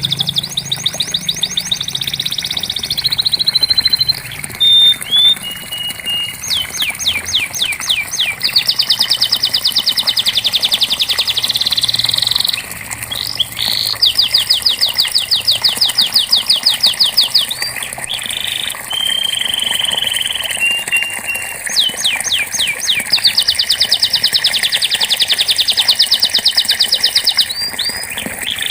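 Domestic canary singing long rolling trills: fast runs of repeated high notes lasting several seconds each, broken by brief single notes and changes of pitch.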